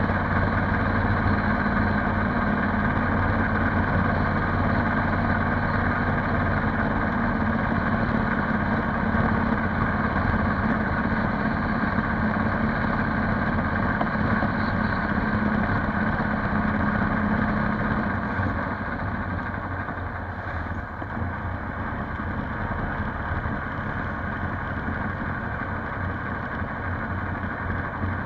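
Polaris Sportsman 570 ATV's single-cylinder engine running steadily while riding, easing off to a quieter, lower drone about two-thirds of the way in.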